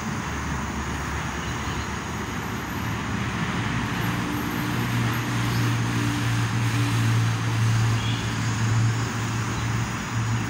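Steady road traffic noise, with a low engine hum that builds about four seconds in and eases near the end as a vehicle passes.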